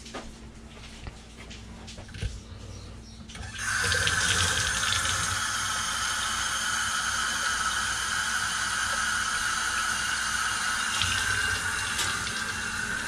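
Laundry utility sink faucet turned on about three and a half seconds in, water running steadily into the basin.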